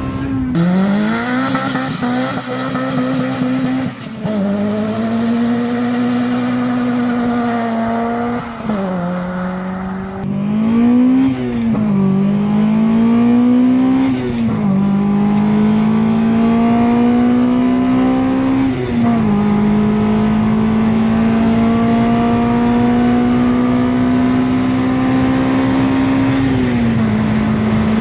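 Honda K20 2-litre four-cylinder of a Civic Type R EP3 revving high under hard acceleration. Its pitch climbs slowly through each gear and drops sharply at each upshift, several times over.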